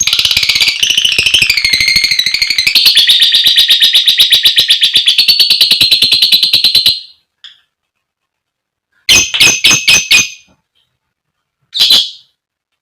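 Female lovebird giving its long, rapid chattering trill (the 'ngekek' song), wavering at first and then holding a steady high pitch for about seven seconds before stopping. After a pause come a quick run of about five sharp shrill calls and then one more call near the end.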